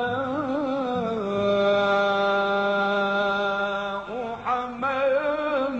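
A man's voice reciting the Quran in melodic tajweed chant, with ornamented wavering notes and one long held note in the middle; a new phrase starts about four seconds in.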